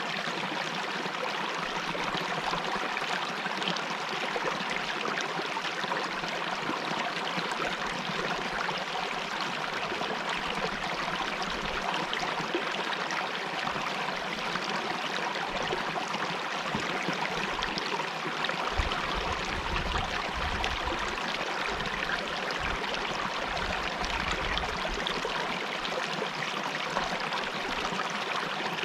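Mountain river water flowing steadily over rocks, an even rushing with some trickling and gurgling.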